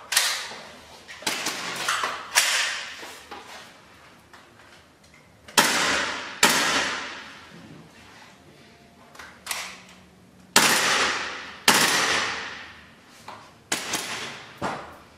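About a dozen sharp, irregularly spaced clacks from WE-Tech SCAR gas blowback airsoft rifles being handled, each ringing out and dying away over about a second in the room.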